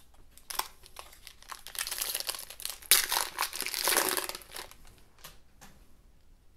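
Foil wrapper of a trading-card pack being torn open and crinkled, a dense crackling that builds for about four seconds with a sharp rip about three seconds in, then dies away as the cards are slid out.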